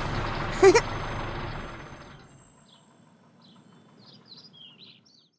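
Cartoon vehicle engine hum fading away over the first two seconds as the harvester and truck drive off, with a short rising pitched sound about half a second in. Then faint birds chirping.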